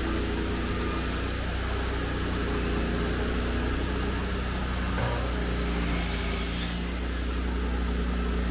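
Engine of sawmill equipment running steadily with a low hum, with a short knock about five seconds in and a brief hiss around six seconds in.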